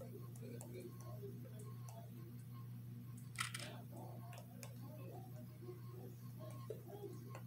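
Faint handling noise as a small wet paint-pour canvas is tilted and turned by hand: scattered soft clicks over a steady low hum, with one brief rustle about three and a half seconds in.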